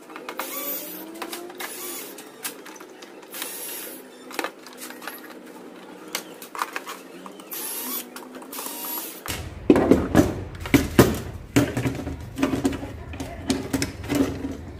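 Cordless electric screwdriver whirring in short runs as it unscrews the plastic rear casing of a flat-screen TV, its pitch rising and falling. About two-thirds of the way through this gives way to a string of sharp clicks and plastic knocks as the casing and speaker are pulled free.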